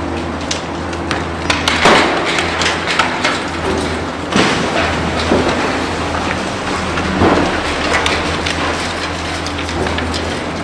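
Heavy demolition machinery running with a steady low drone, with repeated crashes and clatter of concrete breaking and falling: the loudest about two seconds in, again just past four seconds and around seven seconds.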